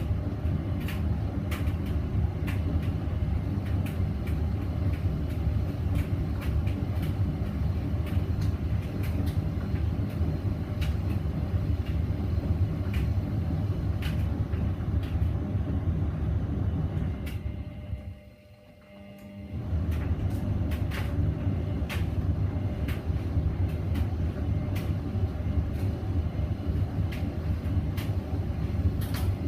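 Hoover VisionDynamic washing machine running with a steady low rumble and scattered light knocks from the load in the drum, still short of its spin. About two-thirds of the way through it goes almost quiet for a second or two, then picks up again.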